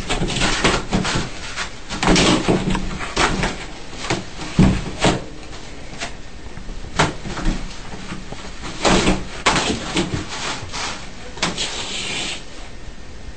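Irregular knocks and bangs, several a second at times, mixed with a person's voice.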